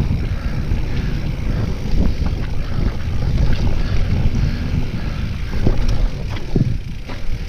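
Mountain bike riding down a dirt trail: heavy wind rumble on the camera microphone, with scattered knocks and rattles of the bike over bumps.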